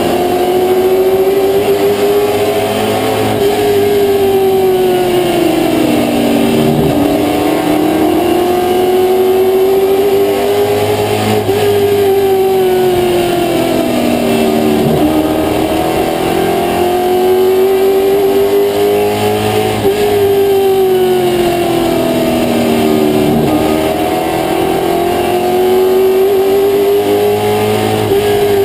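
Limited Late Model race car's V8 engine at racing speed, heard from inside the cockpit. Its pitch drops sharply three times, about eight seconds apart, as the driver lifts for the turns, then climbs back and holds high on the straights.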